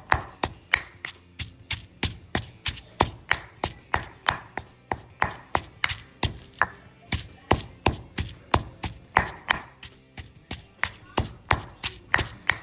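Granite pestle pounding cilantro root and black pepper in a granite mortar, grinding them to a paste. It makes a quick, even run of sharp stone-on-stone knocks, roughly three to four a second, some with a brief high ring.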